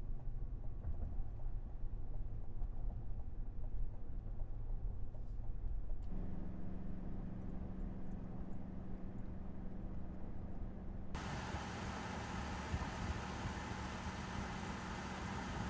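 2025 Chevrolet Silverado High Country pickup driving at highway speed: a low, steady road rumble inside the cabin, with a steady hum joining about six seconds in. About eleven seconds in, it changes to the truck heard from outside as it passes towing a trailer: an even rush of tyre and wind noise.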